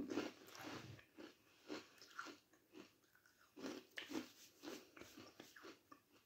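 A person chewing a mouthful of Walkers Wotsits Crunchy corn-puff crisps: a run of faint, irregular crunches.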